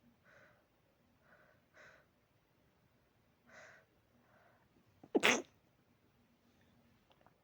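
A person sneezes once, a loud, sharp sneeze about five seconds in, preceded by several short, soft breaths.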